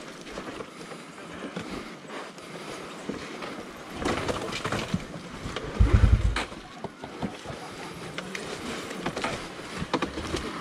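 A dirt bike rolling down a rocky trail with its engine off, dead because its electric starter has failed: tyres crunching over loose ground and the bike clattering over bumps, with a heavy low thump about six seconds in.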